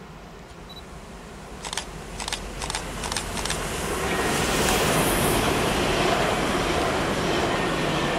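Regional train passing at speed on the far track, its wheel and rail noise building to a peak midway and staying loud. A run of sharp clicks comes a couple of seconds in, as the train approaches.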